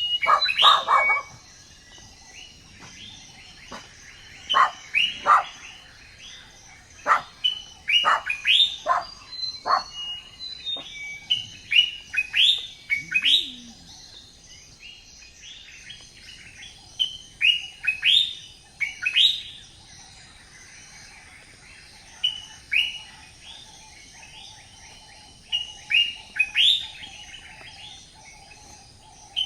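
Birds chirping: many short, sharp calls that sweep downward in pitch, coming in quick clusters with short lulls between them.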